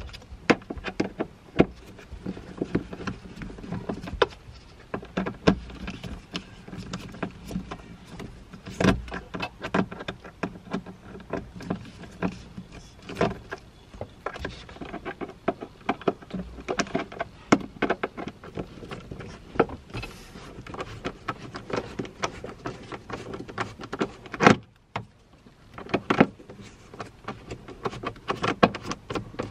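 Irregular clicks and taps of a hand screwdriver with a T20 bit being turned to back screws out of a car's sun visor mount, over a faint steady hum. A louder knock comes a few seconds before the end.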